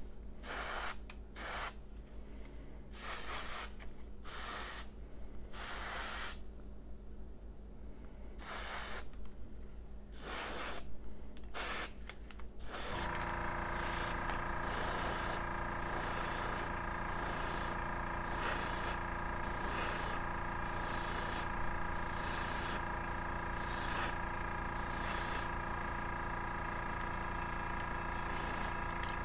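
Airbrush spraying acrylic paint in short hissing bursts, one trigger pull after another with brief pauses between. About halfway through, a steady hum of several tones starts and runs under the bursts.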